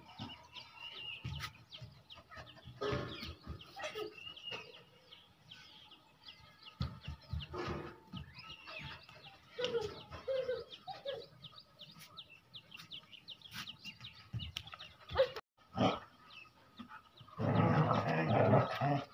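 Scattered bird calls and clucking of fowl, short and irregular, with small knocks between them; about seventeen seconds in, a louder, noisy stretch lasts until near the end.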